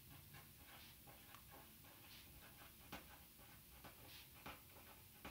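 Faint scratching of a pen writing on lined notebook paper, a quick run of short strokes as letters are formed.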